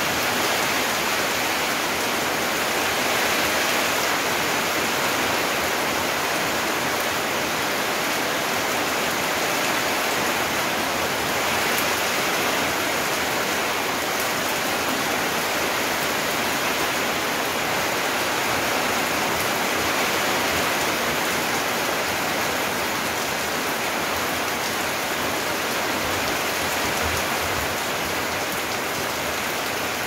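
Steady rain falling on palm foliage and a wet, puddled concrete yard, an even hiss that holds at one level.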